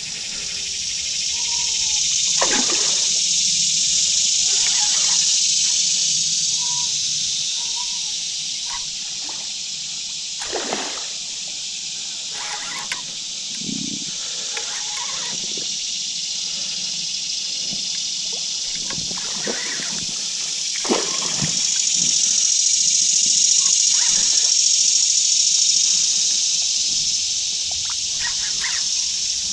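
Water splashing and sloshing in scattered short bursts, from a hooked fish being played on a tight line in shallow creek water, over a steady high-pitched hiss that swells louder twice.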